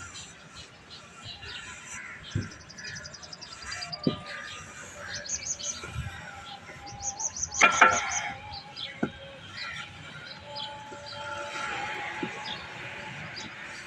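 Birds chirping in quick, high pulsed runs, among scattered short knocks and scrapes.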